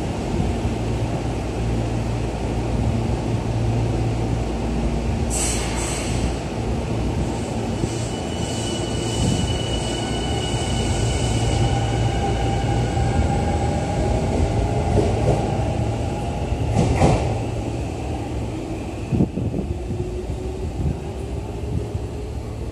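Tokyu 5050 series electric commuter train pulling out of the station and running out past the platform, with a steady low hum under it. From about five seconds in, high squealing and whining tones come in and rise slightly as it gathers speed, with one sharp clank about seventeen seconds in.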